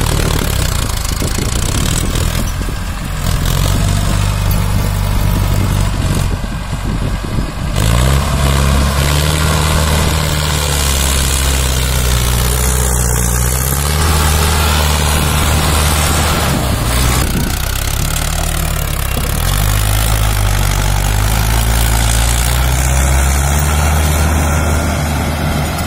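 Mahindra Arjun 555 DI tractor's diesel engine working hard as it hauls a loaded soil trolley through soft ground. The engine note rises and falls several times, climbing about eight seconds in, dropping briefly near the middle and climbing again.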